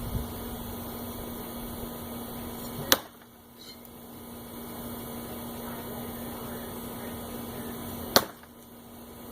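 Two sharp impacts about five seconds apart, one about three seconds in and one near the end: heavy throwing knives striking a wooden 2x4 target.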